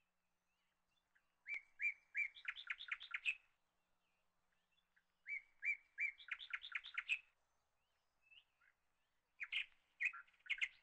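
A small songbird singing three short phrases about four seconds apart, each a few separate chirps running into a quick string of notes.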